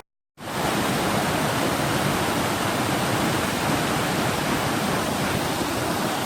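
Waterfall: a steady, loud rush of water pouring over rock cascades. It cuts in abruptly just after the start, following a moment of silence.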